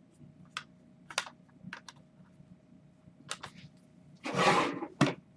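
Hard plastic graded-card cases clicking and knocking against each other as they are handled and stacked: a few sharp separate clicks, then a louder half-second sliding scrape a little after four seconds, and one more click near the end.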